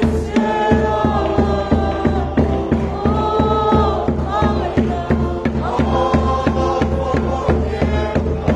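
Congregation singing a hymn in unison over a steady, loud drum beat of about two to three strokes a second, accompanying a worship dance.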